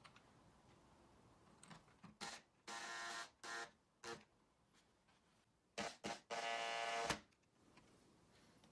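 Cordless drill/driver driving screws into the sled's wooden frame: a few short blips of the motor, then a steady whirr of about half a second a little over two seconds in. The same pattern comes again near the end, with two blips and a run of about a second.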